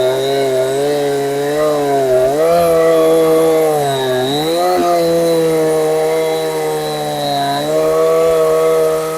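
Husqvarna 372XP clone two-stroke chainsaw running fast on a swapped-in genuine carburettor. Its revs dip and recover a few times in the first half, then hold steadier.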